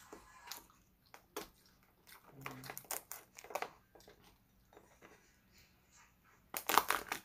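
Cooked crab shell being pried and cracked apart by hand, with scattered clicks and snaps and a dense run of cracking near the end.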